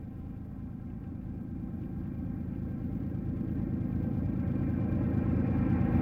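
Diesel locomotives at the head of a double-stack intermodal train approaching, a low engine rumble growing steadily louder as they near.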